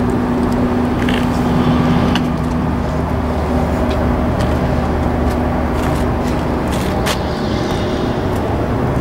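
1980 Detroit Diesel 6-71T, a turbocharged two-stroke inline-six diesel power unit, running steadily at an even speed, with a few short clicks over it.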